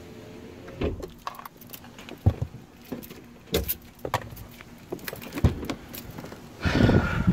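Handling noise inside a car cabin as someone moves to get out: scattered clicks, knocks and rustling, with a louder scuffing rush near the end.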